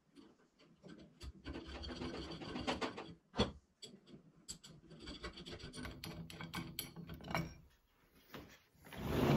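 Steel lock nuts being threaded by hand onto zinc-plated U-bolts, a scratchy metal-on-metal rasp in two long stretches with a sharp click between them. A louder rushing noise starts right at the end.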